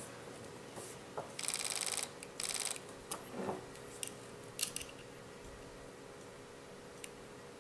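PolarStar HPA engine's solenoid clicking rapidly in two short bursts, about a second and a half in and again just before the three-second mark, as the trigger is test-pulled; a few small handling clicks follow.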